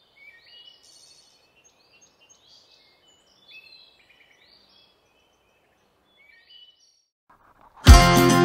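Birds chirping and singing faintly in short repeated phrases. Near the end, music with a heavy beat starts suddenly and is much louder.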